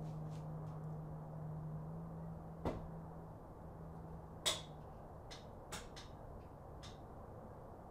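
Craftsman aluminum floor jack being lowered under a car's weight: a steady low hum while the release is open, fading out about five seconds in, with a few sharp clicks and knocks from the jack and its handle, the loudest near the middle.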